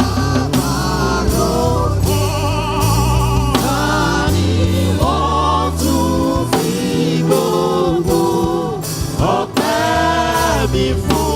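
Gospel praise music: a choir and worship singers sing with a bass and drum kit behind them.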